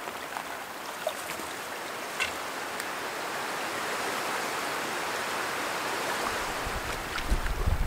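Steady rush of wind-driven waves washing on a lakeshore. A low wind rumble on the microphone comes in about six seconds in.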